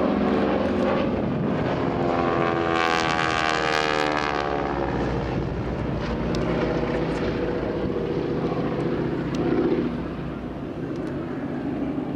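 North American Harvard trainer's Pratt & Whitney R-1340 radial engine and propeller droning steadily during an aerobatic display. The note swells to its strongest about two to four seconds in and shifts in pitch as the aircraft passes and manoeuvres, then settles to a steadier drone.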